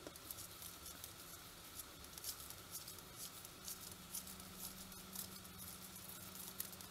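Faint rustling and light, crisp ticks of sports-weight yarn being wound around a wooden 3.25 mm knitting needle and slid along it by hand, with a faint steady hum underneath.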